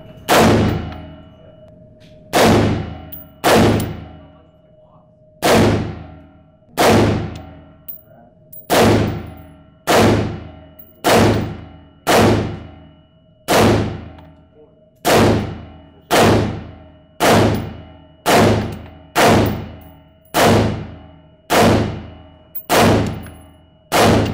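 AR-15 rifle fired semi-automatically, about nineteen loud shots spaced roughly a second apart, each followed by a short echo off the walls of an indoor range.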